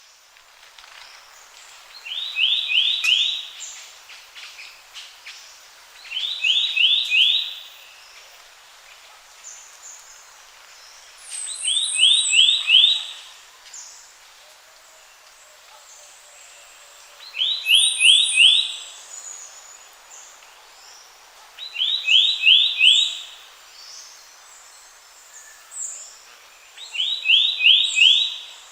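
Forest birdsong ambience. One bird repeats a loud phrase of four quick, high notes about every five seconds, six times in all, over fainter chirps of other birds.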